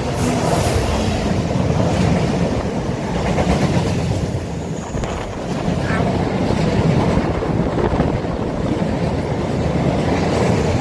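Colas Rail Class 70 (GE PowerHaul) diesel-electric locomotive running through the station close by, then a long train of bogie tank wagons rolling past with a steady rumble of wheels on the rails.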